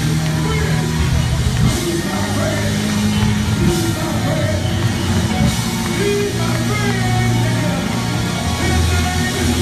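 Loud band music for congregational worship, with held bass notes and chords, a few cymbal crashes, and voices singing along.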